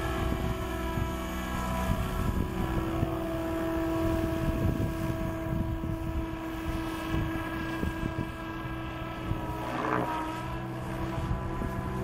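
SAB Goblin 770 electric RC helicopter in flight: a steady whine from its motor and rotor, made of several held tones. Wind gusts on the microphone add an uneven low rumble.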